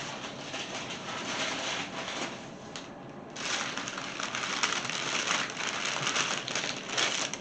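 Packaging rustling and crinkling as wrapped items in a shipping box are shifted and handled, getting louder and busier about three seconds in.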